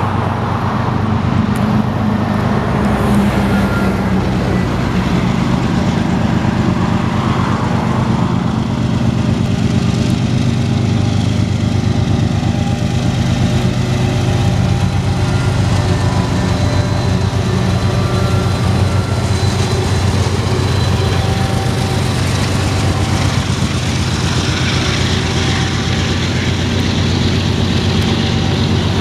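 A Union Pacific freight train passing close by: several diesel locomotives run steadily with a deep engine drone, over the rumble of the rolling train.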